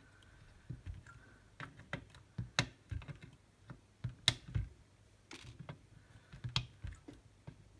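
Side cutters snipping the excess leads of freshly soldered capacitors on a power supply board: a series of irregular sharp clicks, with three louder snaps spread through.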